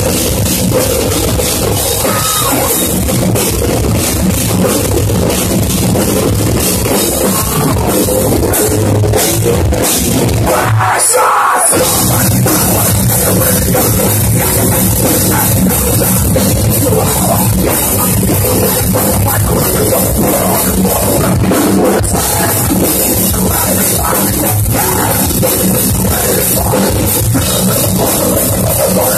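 A heavy metal band playing live and loud: distorted electric guitars, bass and drum kit. About eleven seconds in, the bass and drums drop out for under a second, then the full band comes back in.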